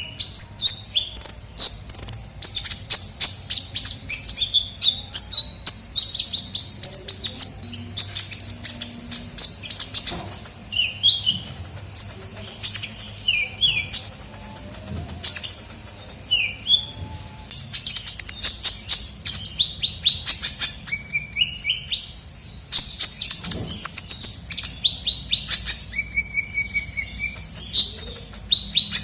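Sunbird song, the bird known in Indonesia as 'kolibri ninja', used as a lure (pikat) call: dense runs of rapid, high-pitched chirps and twittering trills with quick up-and-down sweeps. The runs thin out to scattered calls in the middle and pause briefly before picking up again.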